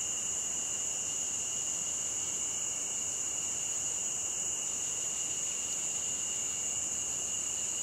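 Night-time insect chorus: a steady, high-pitched trill that runs on without a break.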